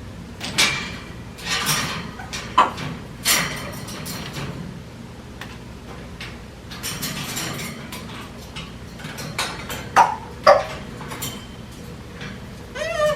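African grey parrot playing with its toys: scattered clicks, knocks and rattles as the toys are chewed, shaken and dropped, loudest about ten seconds in. A short rising-and-falling parrot call near the end.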